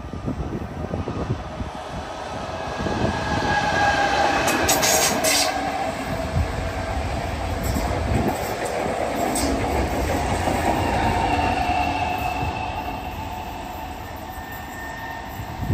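A high-speed passenger train passing: the sound builds over a few seconds, holds loud for several seconds of wheel rumble and rattle with a whine on top, then eases off. A few sharp clicks come about five seconds in.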